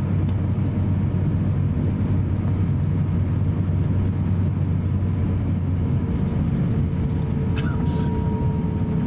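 Cabin noise of an Airbus A350-900 taxiing: a steady low rumble with a faint whine from its Rolls-Royce Trent XWB engines that drifts slightly lower in pitch. A couple of faint ticks come near the end.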